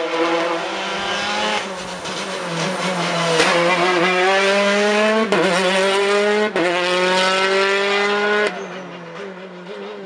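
Rally car engine accelerating hard through the gears, its pitch climbing and falling back at each of about four upshifts, with a sharp crack at two of the shifts. The engine note drops away suddenly near the end.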